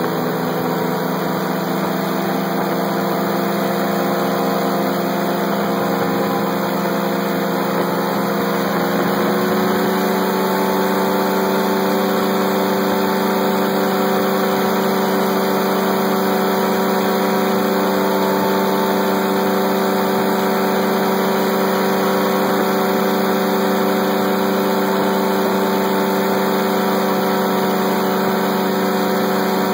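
Ultralight aircraft's engine and propeller running hard through the takeoff roll and climb. The engine note rises about nine seconds in, then holds steady.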